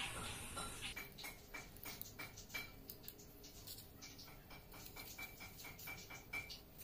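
Faint, quick clicks and ticks in runs of about three a second, with a short pause in the middle, as the stiff green plastic bottle strip is handled and fitted onto the bamboo bow of a kite hummer.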